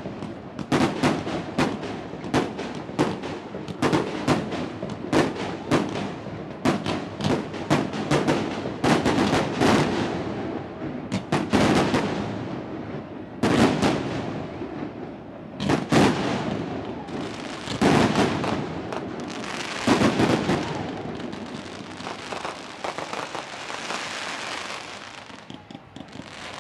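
Fireworks display: aerial shells bursting in a rapid barrage, several bangs a second with heavier booms among them. Near the end the bangs give way to a dense crackling.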